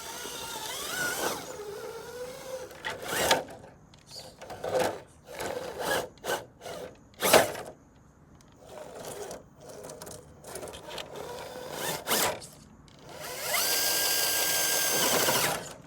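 RC rock crawler's electric motor and geared drivetrain whining, rising and falling in pitch with the throttle, while tyres and chassis knock and scrape over rocks. Near the end the motor holds a steady, loud whine for about two seconds as the truck strains and nearly gets stuck.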